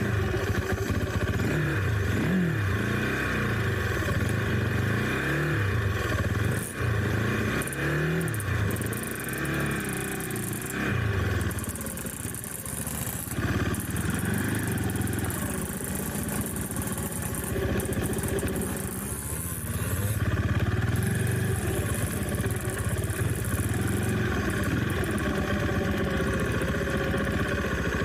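Trail motorcycle engine running while riding off-road, its pitch rising and falling as the throttle opens and closes, with a few sharp knocks along the way.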